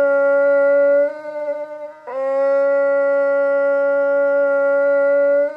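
Shofar blown in long, steady held notes. The first note weakens and wavers about a second in, and a second long note starts about two seconds in and is held until near the end.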